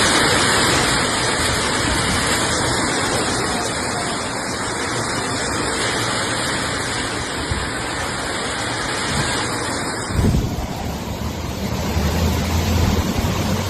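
Heavy rain pouring with a dense, steady hiss. About ten seconds in, the sound changes to strong wind gusting against the microphone, with a low buffeting.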